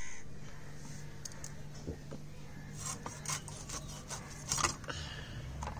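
Scrapes and light knocks of a knife cutting up a raw hilsa fish, over a steady low hum.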